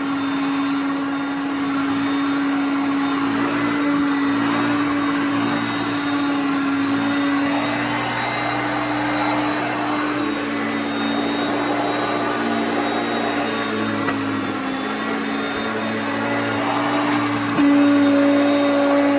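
Hoover Concept upright vacuum cleaner running steadily on its high speed setting while vacuuming carpet, a steady motor whine that gets a little louder near the end.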